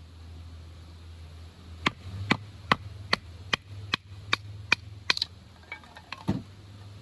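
Wood being chopped for the fire: nine sharp, evenly spaced strikes at about two and a half a second, as when splitting kindling, followed by a few lighter, uneven knocks.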